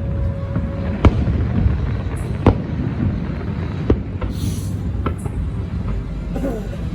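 Distant fireworks bursting during a fireworks show: three sharp bangs about a second and a half apart, over a steady low rumble.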